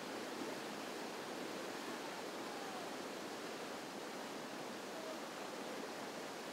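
Whitewater river rapids rushing steadily, an even unbroken hiss.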